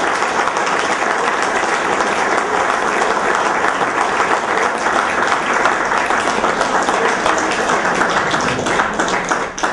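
A small group of people applauding steadily, the clapping dying away near the end.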